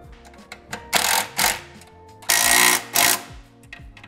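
Hand socket ratchet clicking in quick runs while tightening nylock nuts onto the anti-roll bar mounting-plate bolts under a classic Mini. There are two short runs about a second in and a longer one a little past halfway, over quiet background music.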